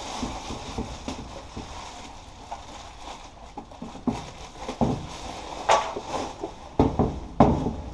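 Packaging being handled while the plasma cutter is unboxed: irregular rustling, clicks and knocks, with several louder thumps in the second half.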